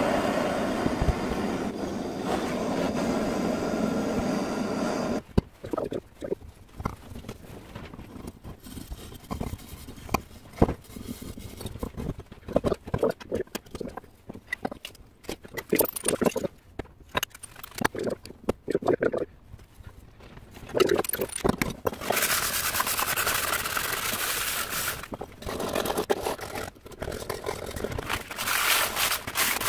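A blow lamp's flame hisses steadily on a copper pipe joint for about five seconds, then stops. Copper pipes knock and clink as they are handled. Near the end comes the rough scraping of a copper pipe end being cleaned.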